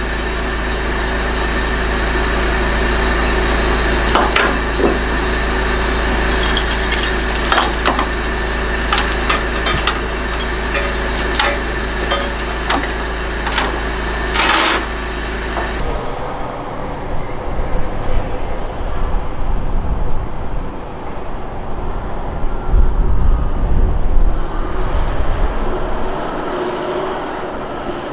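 Heavy diesel engine idling steadily, with scattered sharp metal clanks and knocks from work on the low-loader trailer. About two-thirds of the way through the sound changes abruptly to lorry engines and traffic rumble on a road, with uneven louder swells.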